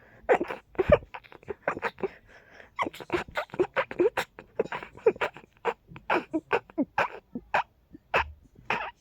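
A person's stifled sneezes, held back to keep them as quiet as possible: a long rapid fit of short, choked bursts, about three a second, with a short pause near the end.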